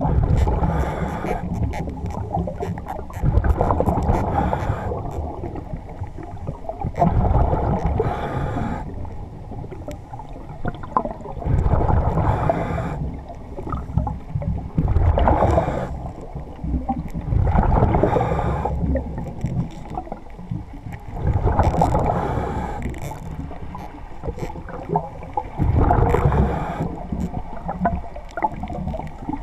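Muffled water noise picked up by a camera underwater, swelling in a louder surge every three to four seconds.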